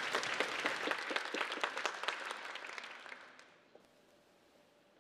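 Audience applauding in an auditorium, the clapping thinning and dying away about three and a half seconds in.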